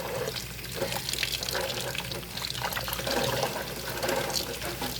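Water running from a kitchen tap into a sink, splashing unevenly, over a steady low hum.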